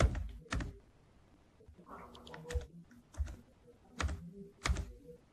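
Computer keyboard keys pressed one at a time, about seven sharp taps and clicks at irregular spacing.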